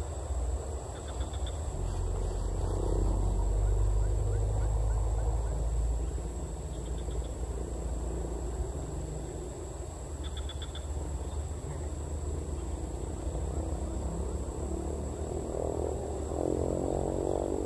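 Swamp ambience: frogs calling over a steady high insect drone, with a few short high chirps. Under it runs a low rumble, loudest a few seconds in.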